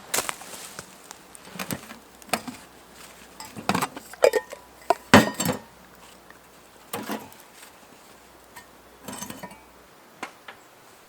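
Metal camp cooking gear, such as mess tins and a folding stove, being handled: irregular clinks and clanks, some ringing briefly, the loudest about five seconds in.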